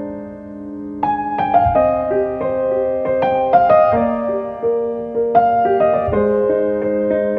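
Background piano music: a slow melody of single notes over held lower chords.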